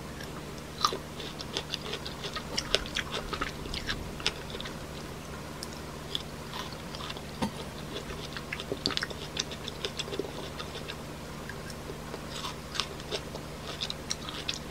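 Crisp chunks of fresh plum being bitten and chewed close to the microphone: an irregular run of sharp little crunches, over a faint steady low hum.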